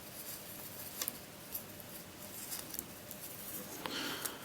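Sticker sheets being handled and leafed through: faint rustling with a few light ticks and taps, a sharper tap about a second in and a little more rustle near the end.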